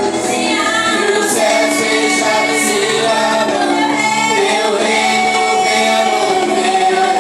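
A group of voices singing a worship song together over musical accompaniment, with long held notes.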